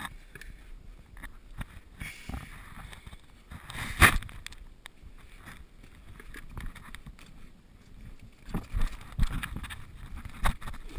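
Irregular scuffing, rustling and knocks of someone clambering through a narrow rocky cave passage, with the camera rubbing and bumping against rock and clothing. The loudest bump comes about four seconds in, and a cluster of knocks and rustles follows near the end.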